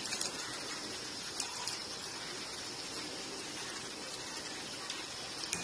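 Hot oil sizzling steadily around breadcrumb-coated poha and potato fingers shallow-frying in a pan, with a few small pops.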